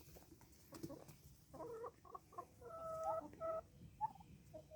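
Chickens clucking faintly: a string of short calls.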